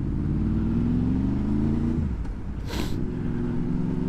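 Honda VFR motorcycle's V4 engine pulling under acceleration, its pitch rising for about two seconds, dipping as it changes up a gear, then running on at a steadier pitch. A brief hiss cuts in near three seconds in.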